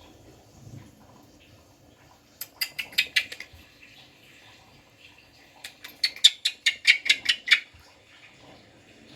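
A pet parrot making two runs of rapid, sharp clicking sounds, about five or six a second, the second run a little after the middle and louder.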